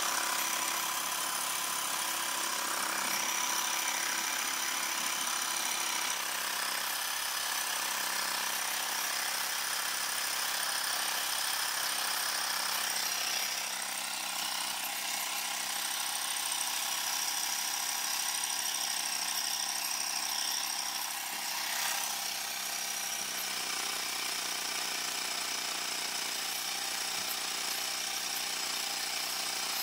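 Small portable electric air compressor running steadily, pumping air into a model steam beam engine that it cannot keep turning.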